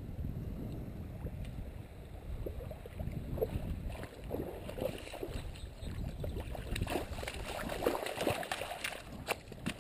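Splashing and sloshing in shallow water as a hooked trout thrashes and is scooped into a landing net. The splashing grows busier over the second half, with a few sharp clicks near the end.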